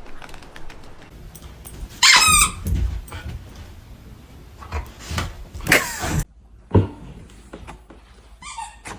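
A dog barking and yelping a few times, the loudest call about two seconds in, with a sudden cut-off a little after six seconds.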